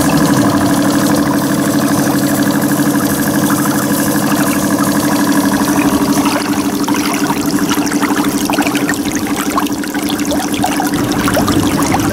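A model steam boat's small steam engine and boiler running, with a steady hum and a fast flutter. Crackling and sputtering take over in the second half.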